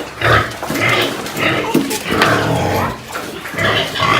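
Upset pig giving a string of short, repeated squealing grunts.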